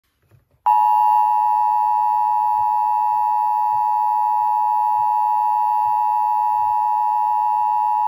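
Emergency Alert System attention signal: the steady two-tone alert (853 and 960 Hz together) sounding loud and unbroken from just under a second in. It heralds an incoming alert message, here one taken for a practice/demo test.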